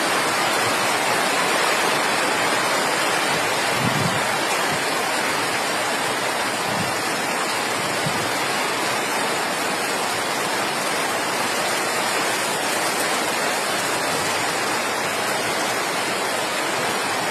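Heavy rain falling, a steady even hiss of water, with a few faint low thumps about four and seven seconds in.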